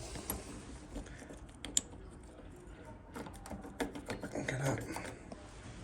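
Light clicks and taps of small metal lock parts being handled as a nightlatch is reassembled, scattered at first and coming more often a few seconds in.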